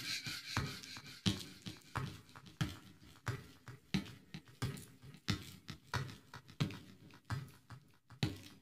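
Cartoon clock tick-tock sound effect: a steady run of soft knocks, about three every two seconds.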